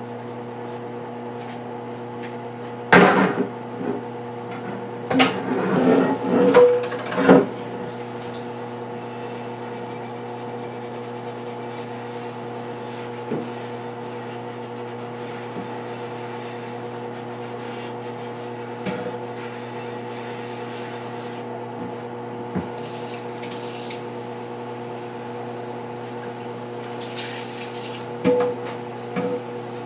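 Kitchen tap running into a sink with a steady hum, while kitchenware knocks and clatters in the sink, loudest in a cluster a few seconds in, with a few lighter knocks later.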